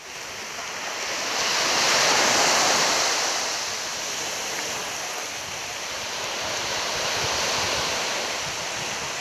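Small waves breaking and washing up on a sandy beach, a steady hiss that swells loudest about two seconds in and again near the end.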